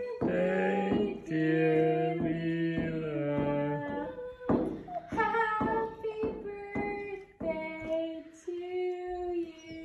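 A woman singing in long held notes that step up and down, with a dog howling along.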